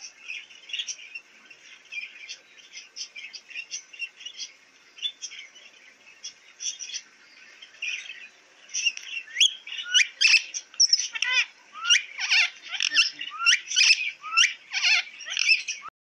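Pet parrots calling in an aviary: steady soft chirping, then from about nine seconds a run of loud, short, rising calls repeated one or two a second.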